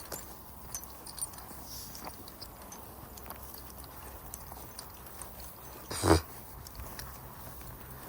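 Faint scattered clicks and taps from walking with dogs on leads, over a low steady hum, with one short loud voiced sound about six seconds in.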